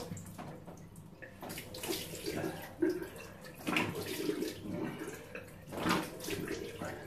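Water splashing in a bathroom basin as he rinses shaving lather off his face with his hands, in irregular scoops and splashes.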